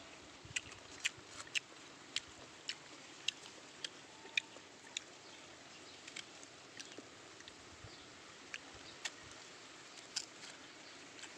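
A person chewing crisp guava: short, sharp crunches about twice a second, thinning to occasional ones after about five seconds.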